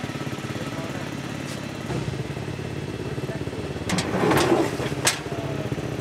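An engine idling steadily, with an even rhythm. A few sharp clicks and clatter sound about four and five seconds in.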